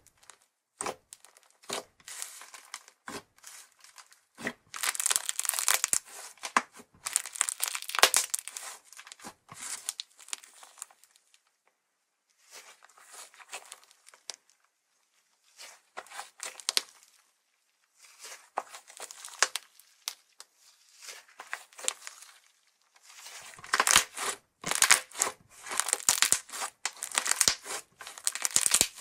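Thick white 'Conversation Heart Ice' slime being pressed, stretched and folded by hand, giving dense runs of tiny crackles and sticky tearing sounds. They come in bursts with short pauses between them.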